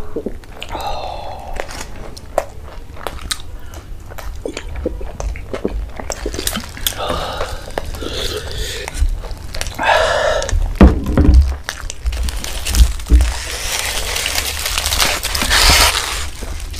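Close-miked eating sounds: biting into and chewing a large chicken shawarma roll, with wet mouth clicks and a few dull knocks. A crackly rustle, like aluminium foil, runs through the last few seconds.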